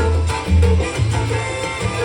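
Salsa music playing, with a steady bass pattern and Latin percussion.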